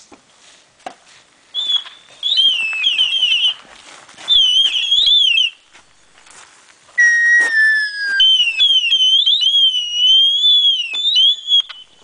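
High, clear whistling in several warbling phrases with short pauses between them, and a lower held note that slides slightly down about seven seconds in.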